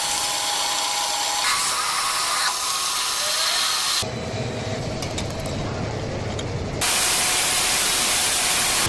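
Metal lathe machining sounds in short edited clips: a steady hissing cut with a faint whine, changing abruptly several times.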